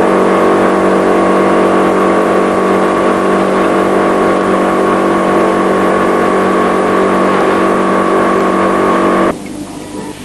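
Formatic food forming machine running, its motor giving a steady hum of several held tones. The hum cuts off suddenly about nine seconds in, leaving a quieter hiss.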